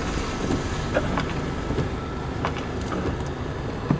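Heavy storm rain pelting a car's roof and windscreen, heard from inside the cabin as a steady dense hiss with scattered sharper drop hits and a louder knock near the end.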